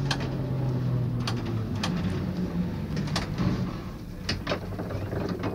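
Cab sound of the vintage NZH 'Blue Tram' A327 under way: a low motor hum that slowly falls in pitch, with half a dozen sharp clicks from the brass controller crank and running gear at irregular intervals.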